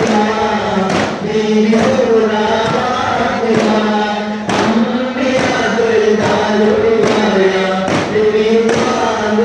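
Daff Muttu: a group of men chanting a devotional song in unison, with daf frame drums struck together about once a second.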